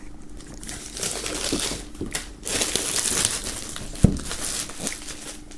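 Plastic shrink-wrap film crinkling and rustling in uneven bursts as it is peeled off a cardboard vinyl box set. A single short knock comes about four seconds in.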